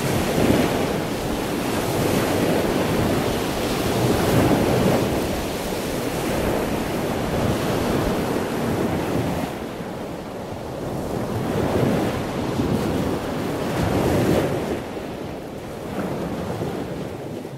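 Rough sea breaking against a stone sea wall, the rush of surf swelling and easing every few seconds as waves hit. Wind buffets the microphone.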